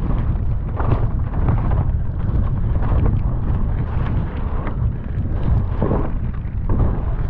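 Wind buffeting a helmet camera's microphone during a fast downhill mountain-bike descent, a steady low rush, with the tyres on a dirt trail and repeated knocks and rattles from the bike hitting bumps.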